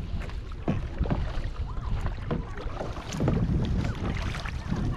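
Kayak paddles dipping and splashing in lake water in uneven strokes, over a low rumble of wind on the microphone.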